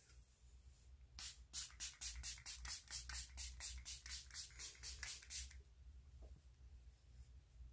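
Pixi Glow Mist pump spray bottle misting a face: a quick run of short sprays, about three a second, for around four seconds, starting about a second in.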